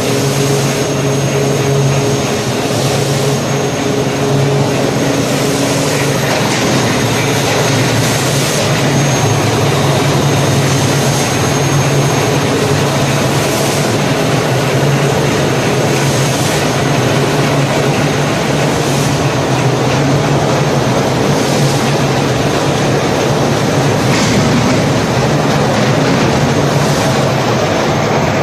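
Fertilizer blending line machinery running steadily (elevator, conveyor and bagging machine), a loud continuous mechanical rumble with a steady low hum.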